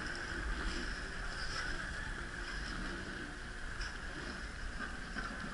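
Steady running noise of a commercial longline fishing boat under way: low engine rumble with water rushing along the hull.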